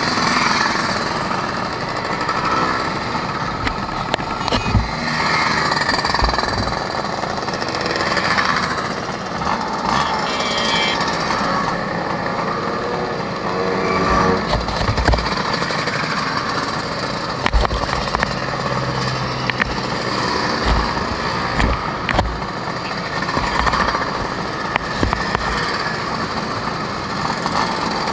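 Several Vespa scooters' engines running together as a group rides in close formation, heard from a scooter on the move, with irregular low thumps of wind buffeting the microphone.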